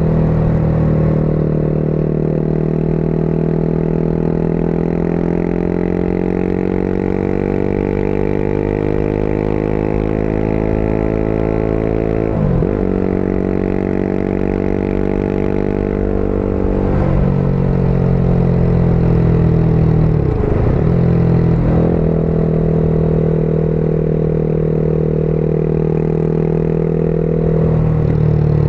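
Motorcycle engine running while riding along a road, its note slowly rising and falling with the throttle. The engine note dips and recovers sharply about halfway through, and again twice in the second half, as at gear changes.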